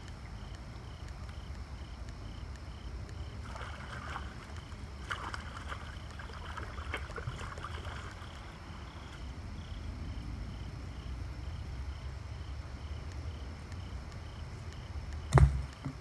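Hands scooping and sloshing in shallow creek water and wet clay, splashing from about three to nine seconds in. A single loud thump comes near the end.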